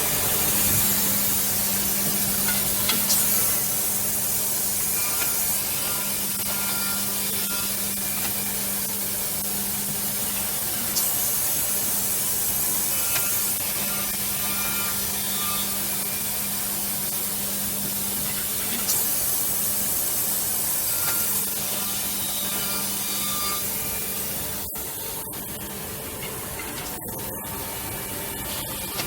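Two-head CNC oval tenon milling machine running: a steady motor hum under the noise of cutters milling wood, with three spells of louder high hiss as the cutting passes come and go.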